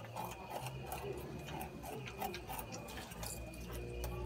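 Porcupines chewing and gnawing their food: a run of irregular sharp clicks and crunches.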